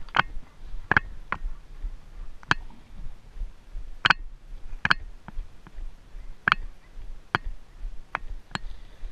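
Shod horse walking up a rocky slope: sharp, irregular clicks of horseshoes striking stone, about one a second.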